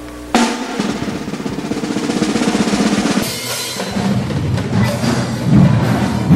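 Indoor drumline of marching snare drums and bass drums playing. A loud hit comes about a third of a second in, then continuous drumming follows.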